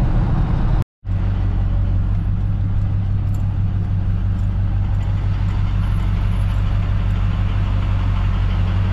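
Ford 7.3L Powerstroke turbo-diesel V8 running steadily at low speed, heard from inside the cab as a loud, low drone. The sound cuts out briefly about a second in, then the same drone resumes.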